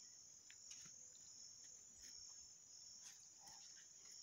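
Near silence, with a faint, steady, high-pitched chirring of insects in the grass and a few soft clicks.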